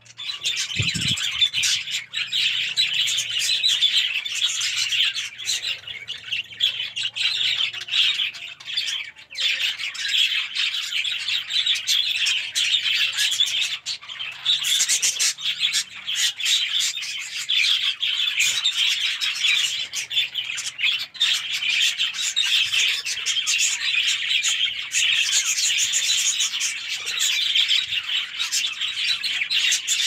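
A flock of budgerigars chirping and chattering continuously, many birds calling over one another at once.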